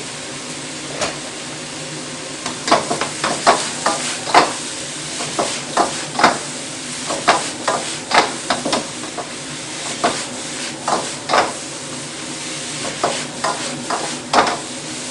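Metal wok spatula scraping and knocking against a steel wok as noodles are stir-fried, with a steady sizzle of frying underneath. The strokes come irregularly, several a second, thickening after about two and a half seconds.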